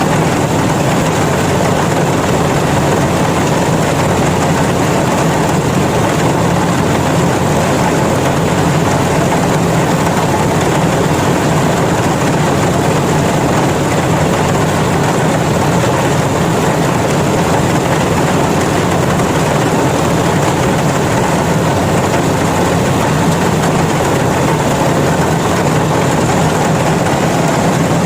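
Yanmar rice combine harvester running steadily under load, a constant heavy engine hum with machinery noise.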